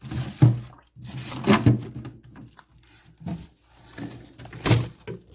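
Handling noise: rustling with several sharp knocks, the loudest about half a second in and again near the end.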